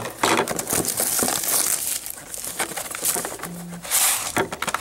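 Plastic shrink wrap crinkling and tearing in irregular bursts as it is pulled off a sealed box of trading cards.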